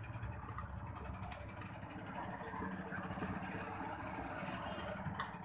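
A few light clicks of a screwdriver tip working at a component on a TV power-supply circuit board, over a steady low rumble from a source that is not shown.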